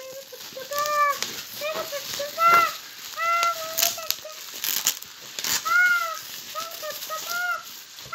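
Short, arched animal calls repeated about once or twice a second, over the brief crackle of plastic bubble wrap being handled.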